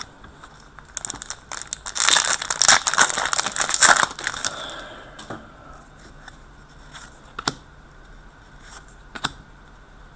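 A hockey card pack wrapper crinkling and tearing open for about three seconds, followed by a few light clicks as the cards are handled.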